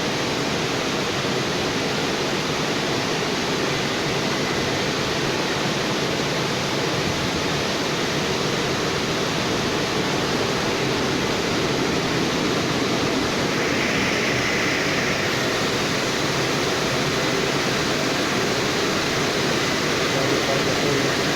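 Automatic car wash's drying blowers running: a steady, loud rush of air.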